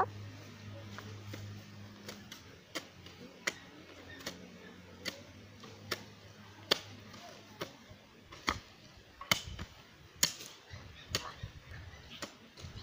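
Hand tools chopping and scraping through grass into the earth, a sharp strike about once a second at an uneven pace, a few of them louder in the second half.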